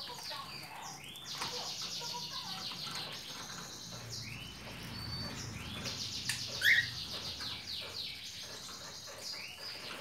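Caged cockatiels chirping and chattering almost without a break, with one louder, sharp call about two-thirds of the way through.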